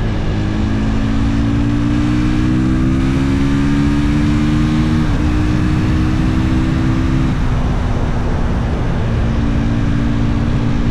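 Husqvarna FE 450's single-cylinder four-stroke engine pulling under load, its note climbing slowly, then dropping sharply about five seconds in as it shifts up. The engine holds a steady note after that, easing off a couple of seconds later, over a rush of wind noise.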